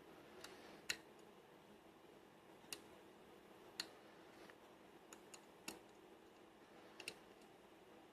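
Light, irregular clicks of a lock pick working the tapered pins of a Lockwood round cylinder, about eight to ten over the stretch, the loudest about a second in.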